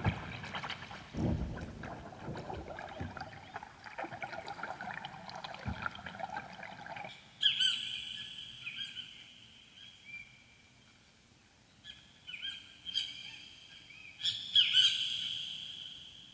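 Ambient electronic music: a dense, shimmering texture with a few low thuds, giving way about halfway through to sparse, high bird-like calls that come in small clusters and fade out near the end.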